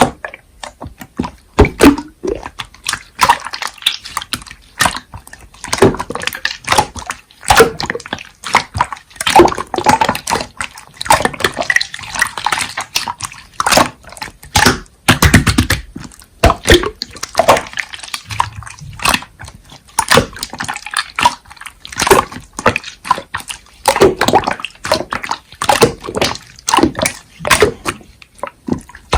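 Slime being squished and pressed by hand, making many irregular wet clicks and pops.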